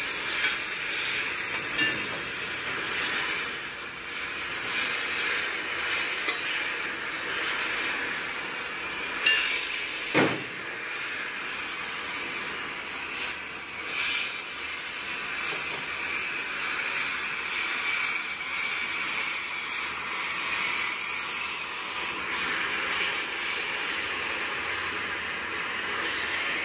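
Gas cutting torch hissing steadily as it cuts into the links of an excavator's steel track chain to free the worn bushings, with a few sharp knocks, the loudest about ten seconds in.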